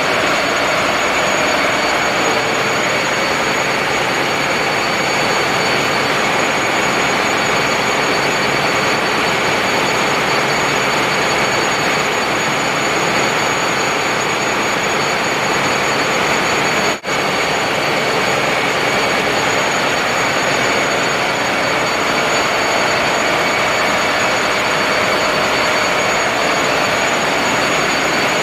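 Ship's engine-room machinery running, a loud steady drone with a constant high whine over it; the sound cuts out for an instant about two-thirds of the way through.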